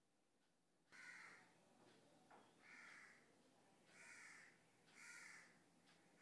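Four short bird calls a second or two apart, faint over quiet room tone.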